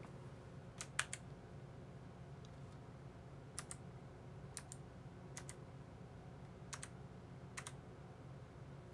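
Keys pressed one at a time, about once a second, on a low-profile mechanical keyboard with Kailh low-profile blue clicky switches. Each press gives a short, faint double click.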